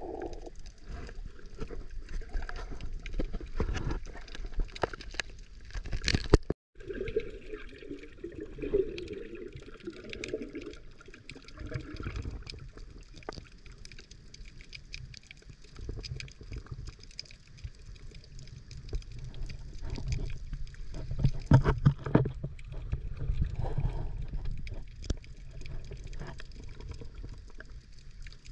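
Water heard from a camera held underwater: a muffled low rumble of moving water with gurgling and many small clicks and knocks. The sound cuts out for a moment about six and a half seconds in.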